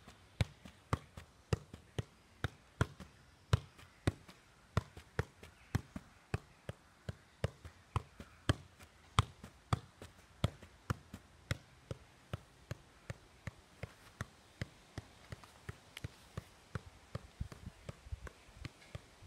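A football kept up in keepie-uppies, bounced repeatedly off the feet and thighs: an even run of short knocks, about three touches a second.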